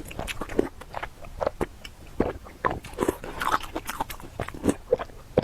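Close-miked eating sounds: chewing with many short, irregular wet clicks and smacks of the mouth.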